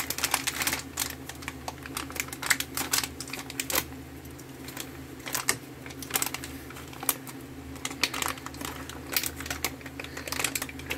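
Crinkling and crackling of a sunflower-kernel ration pouch being handled, in uneven clusters of sharp crackles, over a low steady hum.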